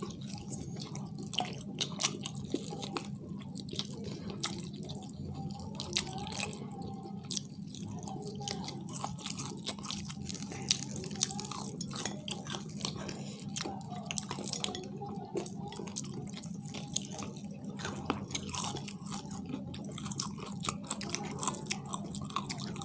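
Close-up chewing and biting of fried chicken, with many small crunches and clicks scattered throughout. A steady low hum runs underneath.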